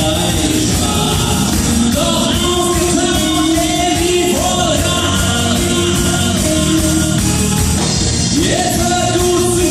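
Live band music with a lead singer over a steady beat; the vocal line slides up into held notes several times.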